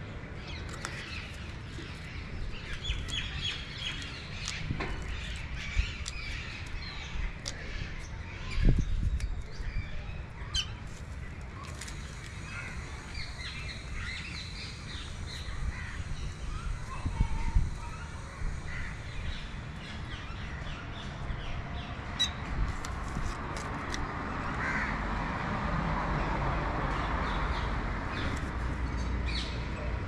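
Outdoor birds calling and chirping, some with crow-like caws, over a steady low rumble. There are two louder knocks, about nine seconds in and again near eighteen seconds, and a rushing noise swells over the last several seconds.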